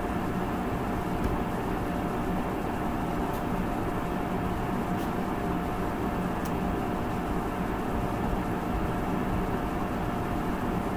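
Steady background noise of the recording room: an even hiss and rumble with a faint constant hum, and a few faint clicks.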